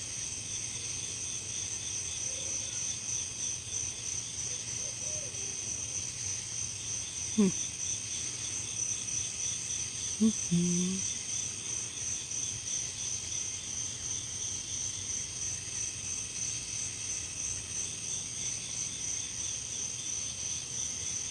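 Night chorus of crickets and other insects: a steady, high, pulsing trill. Two brief low sounds break in about seven and ten seconds in.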